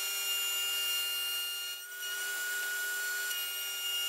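Table-mounted router running with a steady high whine as a straight bit cuts a rabbet along an oak board fed against the fence. The sound dips briefly about two seconds in.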